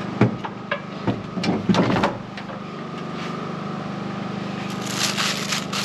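Knocks and clunks from a metal-cutting chop saw being turned and shifted by hand on a truck bed during the first two seconds, then plastic wrap crinkling near the end, over a steady hum.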